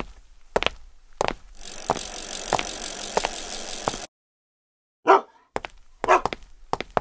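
Added sound effects for toy figures: light taps like small footsteps, then about two and a half seconds of steady rolling hiss with a few clicks as bicycles ride in. After a sudden cut to silence there are two short voice-like calls about a second apart near the end.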